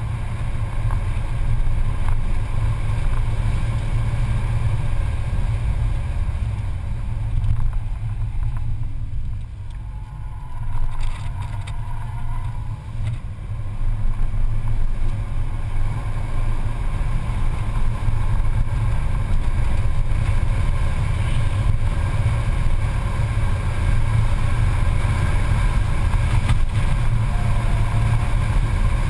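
A Mercedes-Benz C280's engine and tyre noise heard from inside the cabin at track speed, a steady low drone. It eases off for a few seconds about a third of the way through, then builds back up and holds.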